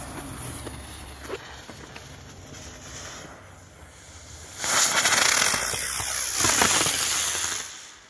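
Xplode Smoke Bird flying firework: its lit fuse fizzes for the first few seconds. About four and a half seconds in, its motor catches with a sudden loud hiss that lasts about three seconds as it lifts off and climbs, then fades away near the end.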